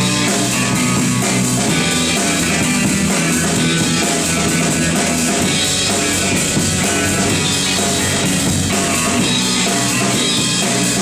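Rock band playing an instrumental break in a song, with drum kit and guitar and no singing.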